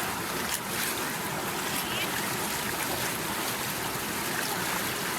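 Waterfall water rushing steadily over rocks, an even hiss of flowing water.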